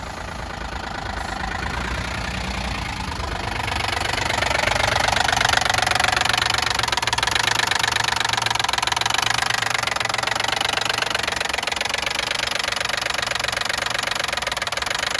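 2012 Ford F-150 pickup engine running with a rapid, steady knock, growing louder between about two and four seconds in and then holding: the engine knock of a truck at nearly 296,000 miles.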